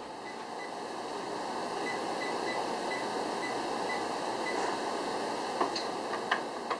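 Oven control panel beeping with short, evenly spaced high beeps, about three a second, as the down-arrow key steps the Frigidaire oven's set temperature down to 350°F. Near the end come a few sharp clicks. A steady background hiss underlies it all.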